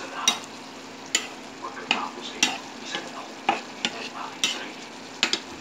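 Cooking utensil scraping and knocking against a pan about nine times at an uneven pace, stirring frying tofu sisig over a low sizzle.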